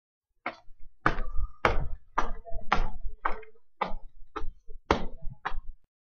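A steady series of about ten knocks, roughly two a second, each with a low thud.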